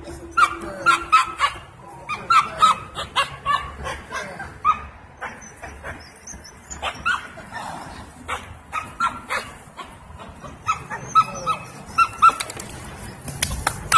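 Belgian Malinois puppies yapping in short, high barks, several in quick succession, in repeated bursts, with scattered sharp clicks and crackles between them.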